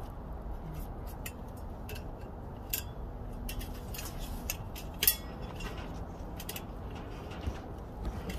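Scattered light metallic clicks and taps from tools being handled, over a low steady background hum.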